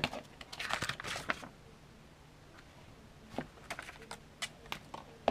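Plastic Blu-ray case being handled and opened: a sharp click, a brief rustle of handling, then scattered small clicks and taps.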